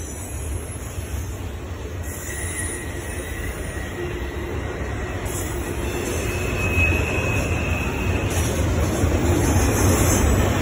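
Norfolk Southern double-stack intermodal freight train rolling past. A steady low rumble of wheels on rail, with thin high wheel squeals coming and going, grows louder toward the end.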